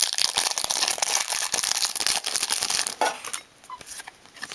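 A clear plastic wrapper on a pack of Yu-Gi-Oh token cards crinkling and tearing as it is pulled open by hand. The crackle stops about three seconds in, leaving light rustles and ticks of the cards being handled.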